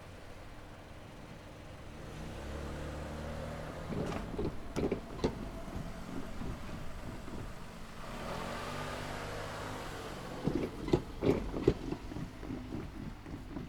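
Two road vehicles cross a railway level crossing one after the other, a few seconds apart. Each engine rises as it approaches, then the tyres thump sharply over the rails, with the second vehicle's thumps the loudest.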